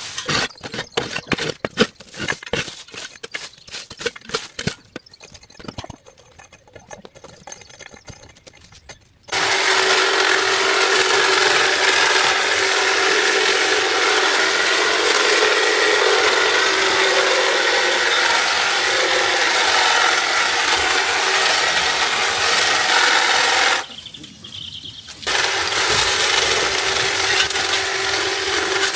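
Quick clinks and scrapes of debris being shifted, then from about nine seconds in a machine running steadily with a constant hum, dropping out for about a second near the end before running again.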